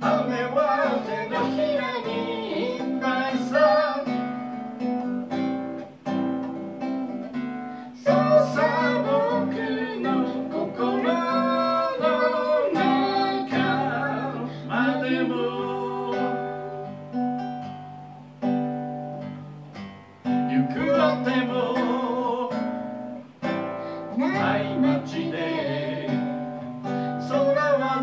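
A man singing to his own strummed acoustic guitar, the voice coming in phrases with short instrumental gaps between them.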